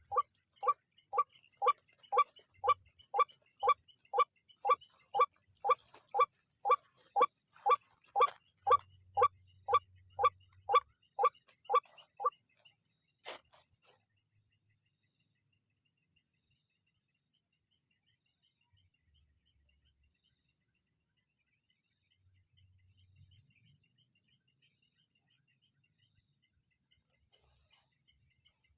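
White-breasted waterhen calling, a loud croaking note repeated about twice a second, each note falling in pitch, stopping about twelve seconds in. A steady high insect trill runs underneath.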